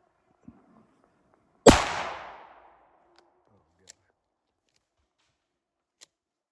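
A single shotgun shot: one sharp, loud report about two seconds in, its echo dying away over about a second.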